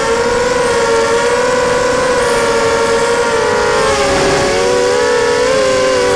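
Brushless motors and propellers of a 230-size FPV racing quadcopter whining, heard from on board: several close tones at slightly different pitches. About four seconds in they dip and waver as the throttle changes during a hard bank, then settle again.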